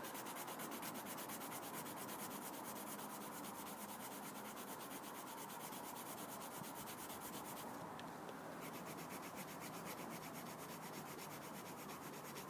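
Winsor & Newton coloured pencil rubbing on ordinary paper in quick back-and-forth strokes, laying flat swatches of colour; a faint, even scratching with a brief let-up about two-thirds of the way through.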